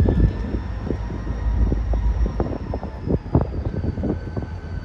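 EMD four-axle diesel locomotive approaching slowly at the head of a freight train, its engine giving a steady low rumble. Irregular knocks and clicks come from the wheels on the track.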